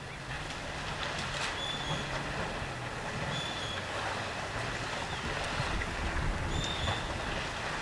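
Steady low rumble and hiss of a safari vehicle's engine idling. A bird repeats a short, high whistled note every second or two, with a few faint clicks.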